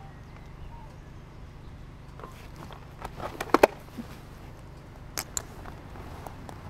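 A few sharp clicks and knocks of gear being handled close to the microphone, loudest in a quick cluster about three and a half seconds in and again twice just after five seconds, over a faint low hum.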